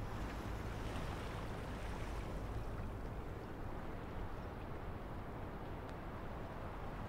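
Steady outdoor ambience of a tidal harbour: an even low rumble and hiss with a few faint ticks.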